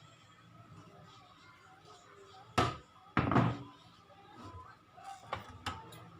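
Two loud knocks about half a second apart, each ringing briefly, followed by a few lighter clicks, over a faint steady hum.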